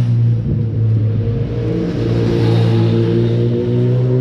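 A vehicle engine running loud and steady at one even pitch, with a brief dip about a second and a half in.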